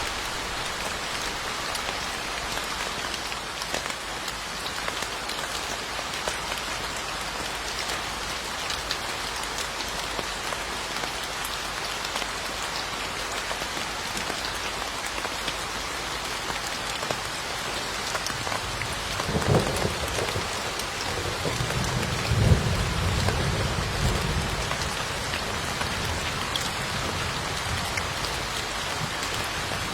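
Steady rain falling, with a crack of thunder about two-thirds of the way through that rolls into a low rumble for a few seconds.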